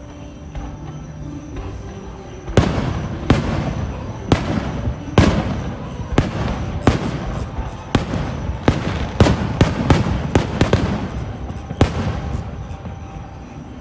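Fireworks display: after a quieter couple of seconds, aerial shells burst in a quick, irregular series of more than a dozen sharp bangs, each echoing briefly.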